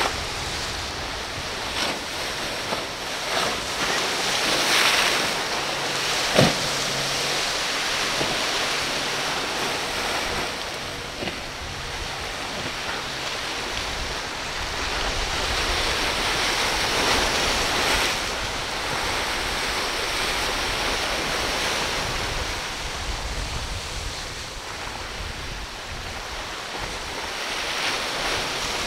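Choppy inlet water and surf washing steadily, with wind buffeting the microphone and a sharp knock about six seconds in.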